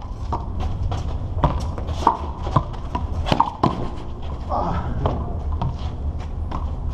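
Sharp smacks of a small rubber handball struck by hand and rebounding off the concrete wall and pavement in a rally, about one every half second. A short shout from a player comes just before the middle, over a steady low rumble.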